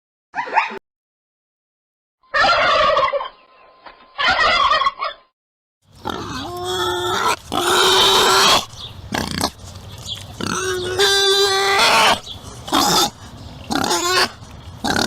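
A series of loud animal calls in separate bursts: a brief call, two harsh rasping calls, then a run of pitched, wavering cries.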